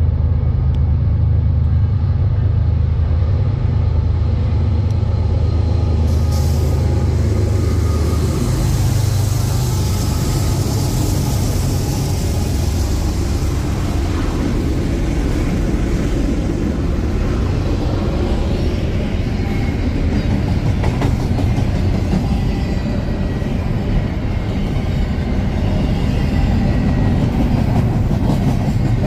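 A BNSF freight train passing close by. For the first several seconds its diesel locomotives run with a steady low engine drone. After that the loud rolling rumble of double-stack container well cars going by on the rails takes over.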